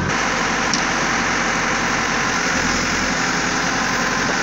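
Caterpillar 416E backhoe loader's diesel engine running steadily, an even, unchanging noise.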